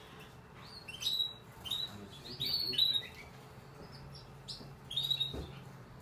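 Newly hatched Spanish Timbrado canary chick cheeping: short, high chirps in quick clusters, with a quieter gap in the middle.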